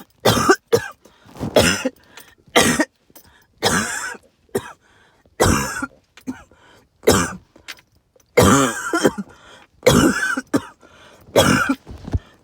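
A person's hacking cough and throat clearing, in short bursts about once a second, some with a wheezy, pitched edge. It is an allergic cough that the uploader puts down to tree pollen and mold spores.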